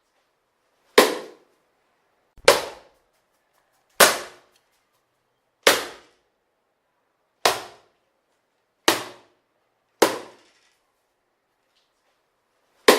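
A newspaper swatted against a wall at a mosquito: seven sharp slaps about one and a half seconds apart, each dying away quickly, with an eighth right at the end.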